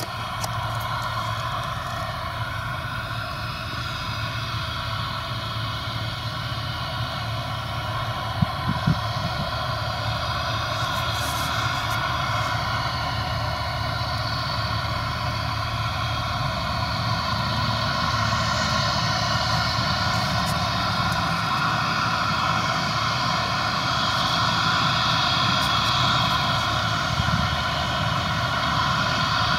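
Steady drone of farm machinery as a HAWE grain cart's unloading auger, driven by its tractor, empties grain into a truck trailer. Two short knocks sound about eight seconds in.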